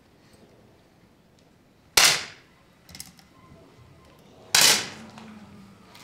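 Two sharp 10 m match air pistol shots, about two and a half seconds apart, each followed by a short echo.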